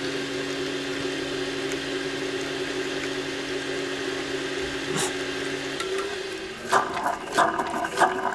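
A kitchen appliance hums steadily over a soft hiss. Part of the hum stops about six seconds in, and several light clinks of kitchenware follow near the end.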